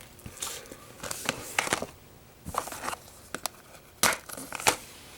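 Plastic shrink-wrap being crinkled and peeled off a Blu-ray case, in scattered short crackles with a few sharp clicks from the case being handled, the loudest about four seconds in.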